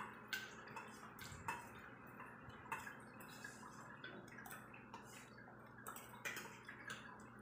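Light metal clinks of spoons against stainless-steel bowls, scattered and irregularly spaced, over a faint steady room hum.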